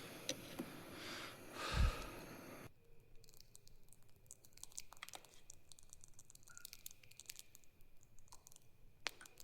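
A brief hiss with a single low thump about two seconds in, which stops abruptly. After that, a campfire crackles with scattered sharp pops and clicks.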